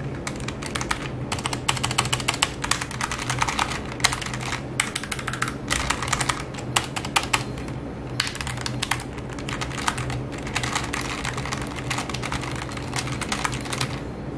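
Typing on a Logitech G915 TKL wireless low-profile mechanical keyboard with GL Tactile switches: fast, dense key clicks in runs, with short pauses between them.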